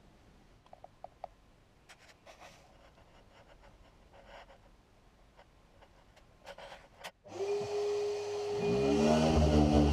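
Faint clicks of handling, then about seven seconds in a steady motor whine starts. About a second and a half later an electric random-orbit sander spins up, its pitch rising, and runs loudly.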